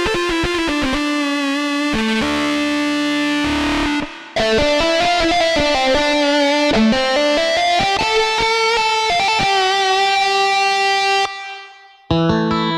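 Yamaha PSR-S750 arranger keyboard playing music with a plucked, guitar-like voice, a melody over chords with a steady pulse. It stops abruptly near the end, and a new pattern starts a moment later.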